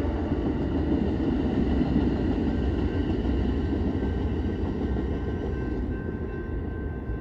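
Amtrak California Zephyr's bilevel Superliner passenger cars rolling past on the rails: a steady rumble that slowly fades as the end of the train goes by.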